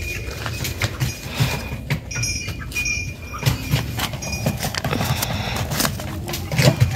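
Footsteps and rustling from a handheld phone being carried, with many short knocks and a few brief high chirps.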